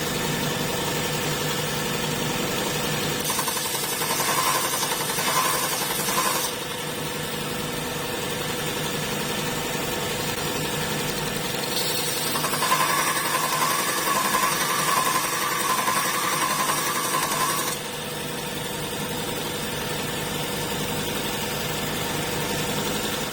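Robert Sorby ProEdge belt sharpener running steadily on a 120-grit belt. Two louder spells of grinding come as a drill bit is pressed to the belt to grind its primary facet: a short one about three seconds in and a longer one of about six seconds starting about twelve seconds in.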